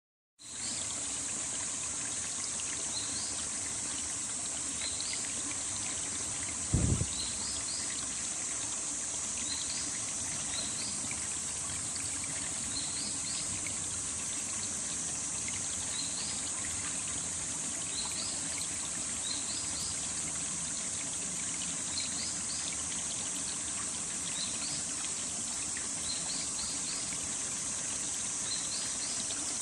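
Mountain valley stream flowing steadily, with short high chirps repeating in little groups every couple of seconds. A single low thump about seven seconds in.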